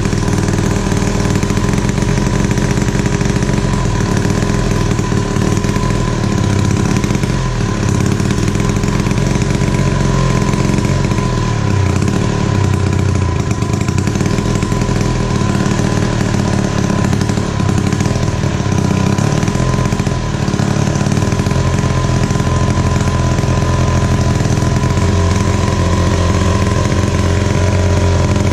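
Wright B-520 reciprocating saw's 115 cc two-stroke engine running steadily while its carburetor is adjusted with a screwdriver, a little louder near the end.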